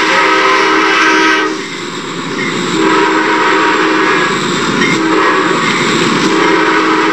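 Diesel locomotive air horn sounding in long blasts, cut off about a second and a half in and resumed about a second later, with a further blast near the end, over the steady rumble of the moving train.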